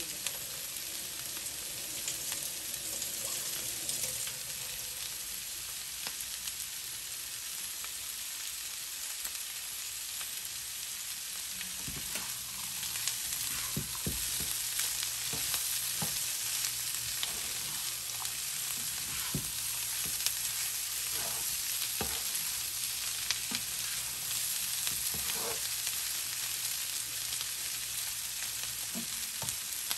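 Bottle-gourd skin, shrimp and vegetables sizzling steadily in a nonstick frying pan. From about twelve seconds in, a spatula stirs the food, scraping and clicking against the pan.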